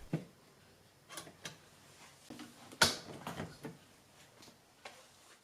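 A few separate light clicks and knocks, with one louder knock about three seconds in.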